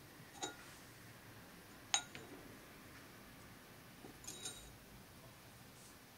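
A few light clinks of glass against a metal tray as a glass jar is picked up and handled: one at about half a second, the loudest at about two seconds with a brief ring, and two close together a little after four seconds.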